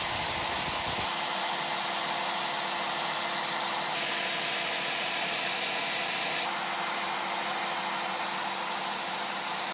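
Wood router run at minimum speed through a speed controller, used as a tool post grinder: a steady motor whine with the hiss of a small grinding stone on the lathe chuck's steel jaws. The hiss grows brighter for a couple of seconds midway. The stone grinds one jaw hard while barely touching another, because the jaws are out of true by about 15 to 20 thousandths.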